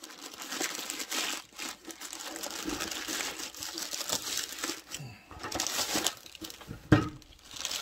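Plastic poly mailer bag crinkling and rustling as it is torn open and a box is pulled out of it, with a single loud thump about seven seconds in.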